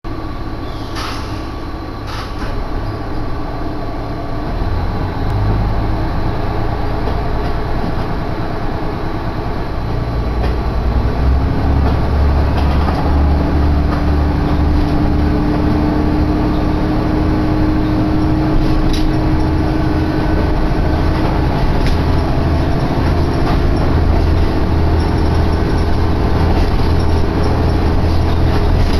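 Diesel railcar running, heard from inside the carriage: a steady low rumble that grows louder over the first ten seconds or so as the train picks up speed, with a steady drone through the middle.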